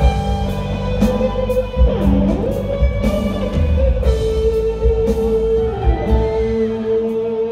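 Live rock band playing an instrumental passage between sung lines: a lead melody of long held notes with slides, over bass and a steady drum beat.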